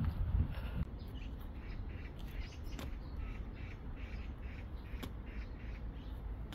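A bird repeating short calls in a steady series, about two a second, over light wind noise.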